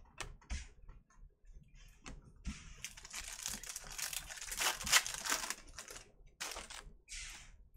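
Foil trading-card pack crinkling as it is torn open by hand and the cards are slid out, with short papery swishes of cards being handled before it.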